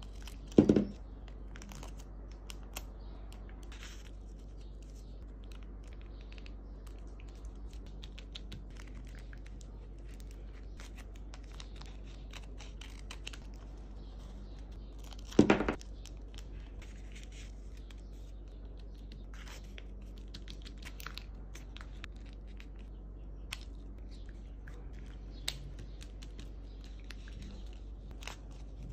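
Paper-craft handling: clear sticky tape pulled off its roll and torn, with paper crinkling and scissors cutting, as a run of small clicks and rustles. Two louder rips come about a second in and around the middle, over a steady low hum.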